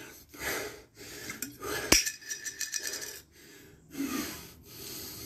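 Hard breathing between exercises, then a plastic water bottle being handled: a sharp click about two seconds in and a second of crinkling plastic, followed by drinking near the end.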